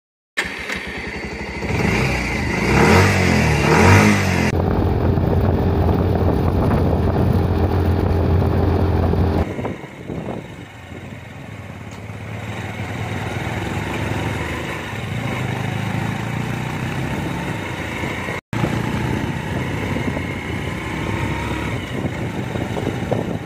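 Motorcycle engine revving hard for the first few seconds, then running steadily at speed. From about ten seconds in there is quieter riding noise over several cut clips.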